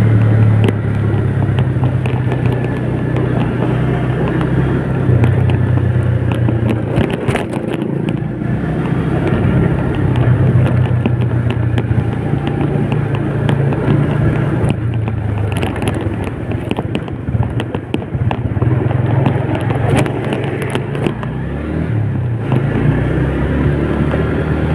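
Old Yamaha Vega underbone motorcycle's single-cylinder four-stroke engine running on the move, its note easing off and picking up again a few times, with scattered crackling clicks.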